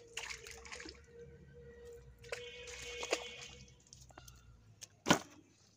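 Water dripping and squelching, as from a wet cast net, with scattered light clicks and one sharp knock about five seconds in.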